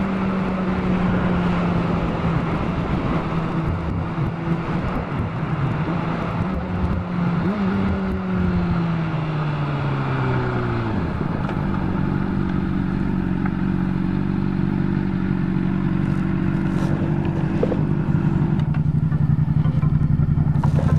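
Sport motorcycle engine heard from on board with wind rush, running steadily at first. About eight seconds in, a brief rise in the note is followed by a steady fall as the bike slows. It then settles into a low, steady note close to idle.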